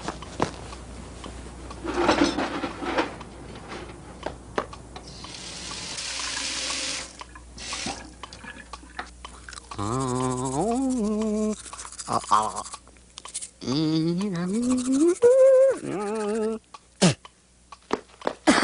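Off-screen cartoon sound effects: scattered clicks and a hiss like running water that swells and cuts off, then a voice making wordless rising tones twice.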